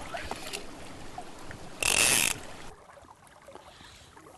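Click-and-pawl fly reel buzzing for about half a second, about two seconds in, as line is pulled off the spool. A steady hiss of river water runs behind it.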